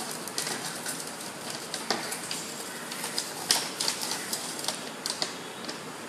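Folded paper instruction booklet being unfolded and handled: irregular crackling and rustling of the sheets.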